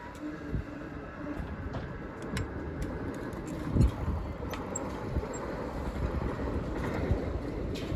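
Saphir Odoriko E261-series express train passing at speed: a steady rumble of wheels on rail with scattered sharp clicks, and one louder knock about four seconds in.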